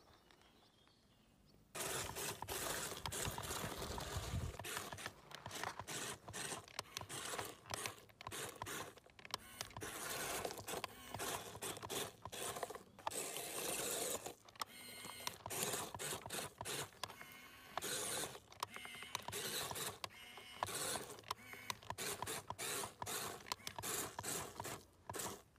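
Small geared motor of a cardboard toy ambulance running as it drives over gravel, a busy clatter of ratcheting gear clicks and crunching grit. It starts about two seconds in and cuts in and out in short stops.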